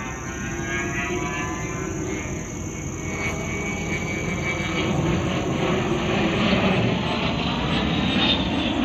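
A-10 Warthog jet flying overhead, its twin turbofan engines giving a high whine over a broad rush that grows louder as it passes.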